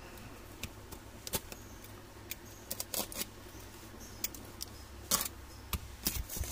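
Utility knife slicing through packing tape and cardboard on a small parcel, with handling of the box: scattered short scratching cuts and clicks, the longest about five seconds in.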